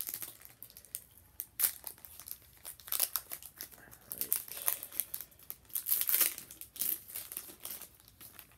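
Plastic foil wrapper of a Pokémon trading card booster pack being torn open and crinkled by hand, in a run of sharp crackles. The loudest come about one and a half, three and six seconds in.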